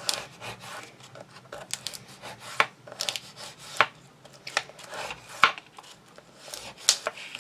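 Glued card being burnished down by hand: irregular short scraping rubs with several sharp taps in between.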